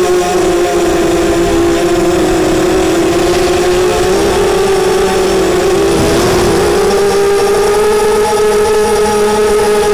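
Racing quadcopter's brushless motors buzzing in flight: a steady, loud whine that wavers in pitch and climbs a little about six seconds in.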